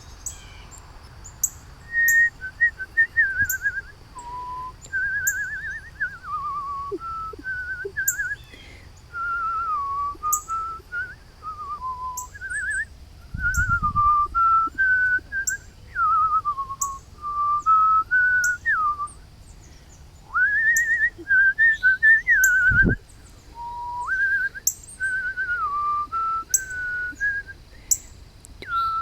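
A person whistling a wandering, tune-like line in short phrases with trills and slides. Over it, short high chirps repeat about once a second, and there are two dull thumps, about a third of the way in and again after two-thirds.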